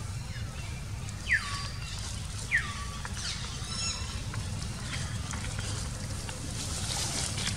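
Two short, high calls about a second apart, each dropping sharply in pitch, then a thinner, higher call, over a steady low rumble.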